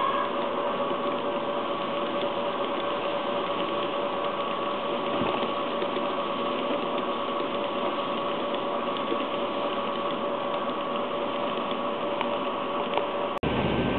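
N gauge model train of blue sleeper coaches rolling along the track, a steady rattling running noise with a faint steady whine. It breaks off for an instant near the end.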